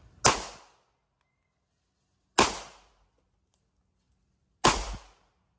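Three single shots from a Smith & Wesson M&P40c compact .40 S&W pistol, about two seconds apart, each a sharp crack with a short decaying echo.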